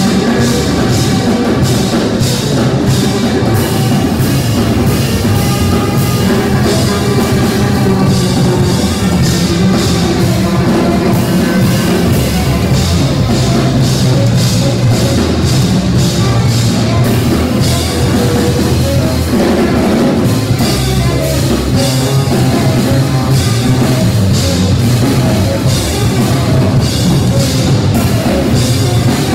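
Live jazz trio playing loud, driving music: tenor saxophone over electric bass guitar and drum kit.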